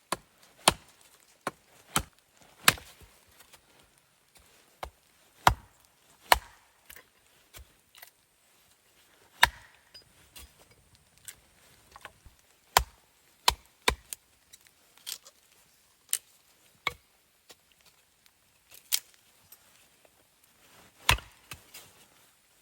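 Wood being chopped: about twenty sharp single blows at an uneven pace, roughly one a second with short pauses, some much louder than others.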